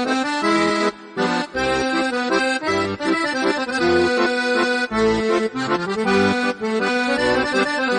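Instrumental music: a melody of held notes over a bass line that pulses about twice a second.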